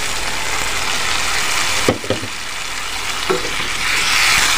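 Prawn curry sizzling steadily in a nonstick wok as a little water is poured into the hot masala, then a spatula stirring it, with a few short knocks about two seconds in and just past three seconds; the sizzle swells near the end as the stirring gets going.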